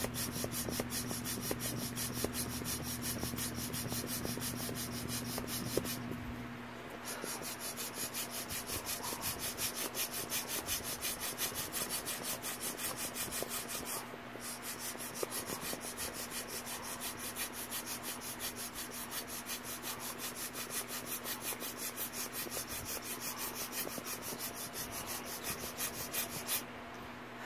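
Inflatable vinyl beach ball being handled as it is blown up: a rubbing, rasping sound that repeats in a quick, even rhythm.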